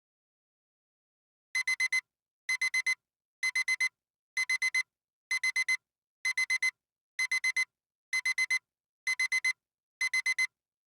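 Digital alarm clock beeping: groups of four quick, high-pitched beeps, repeating about once a second, starting after a second and a half of silence.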